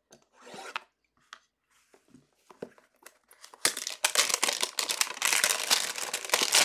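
Plastic shrink-wrap being torn off a hanger box of trading cards: a few light rustles and clicks at first, then loud, continuous crinkling and tearing of the cellophane from about three and a half seconds in.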